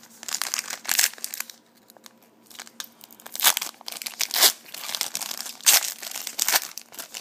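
Foil trading-card pack being handled and torn open: bursts of crinkling and tearing foil wrapper, in several rustling bouts with short pauses between.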